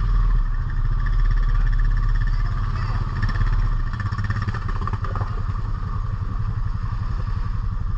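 ATV engine running under way, a steady rapid beat that eases off slightly about halfway through.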